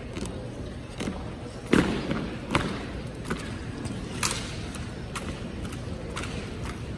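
Sharp knocks and slaps from a marching armed drill team's rifles and boots, about one a second, the loudest about two seconds in.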